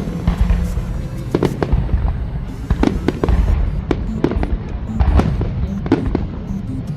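Aerial fireworks bursting in quick succession, sharp cracks and deep booms several times a second, with rumbling echoes, over the show's accompanying music.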